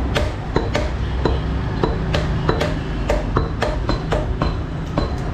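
Two butchers' cleavers chopping beef on wooden chopping blocks: sharp, uneven chops, about four a second, over a steady low hum.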